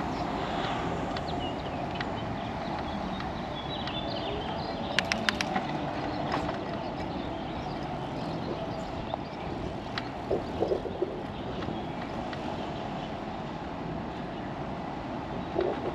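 Steady wind and tyre noise on a GoPro riding on a moving bicycle, with a quick run of four sharp clicks about five seconds in and faint bird chirps.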